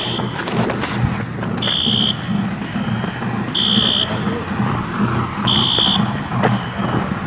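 A building fire alarm sounding high-pitched, half-second blasts about every two seconds, three times in a row, over a steady low rumble.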